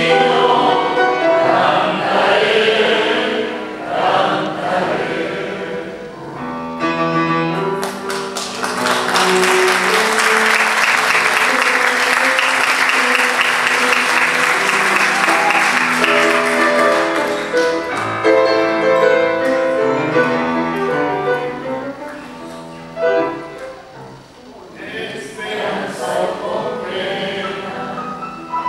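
Male classical voice singing an Argentine zamba with grand piano accompaniment. From about 8 s to 16 s the singing stops and hand clapping fills the sound while the piano plays on. The singing then resumes over the piano.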